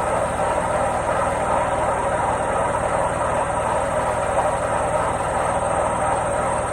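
Washing machine running with a steady mechanical whir and hum, even throughout with no pauses or clear rhythm.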